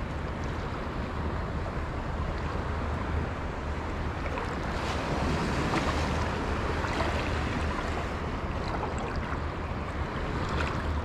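Wind buffeting the microphone in a steady low rumble over small waves lapping and sloshing in shallow sea water.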